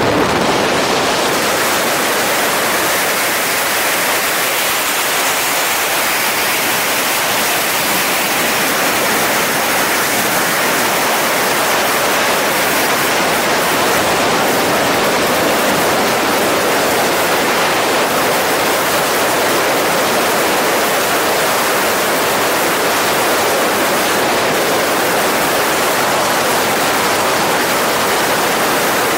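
Wind rushing over a helmet-mounted camera's microphone during wingsuit flight: a loud, steady hiss of airflow that does not let up.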